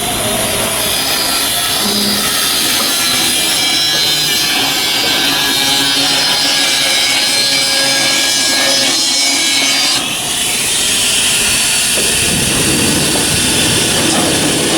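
Continuous shipbuilding work noise from a power tool working the ship's steel. The sound changes abruptly about ten seconds in, and a low rumble comes in a couple of seconds later.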